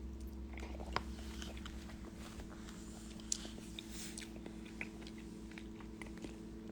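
Faint sounds of a person eating ramen: soft chewing with a few small clicks.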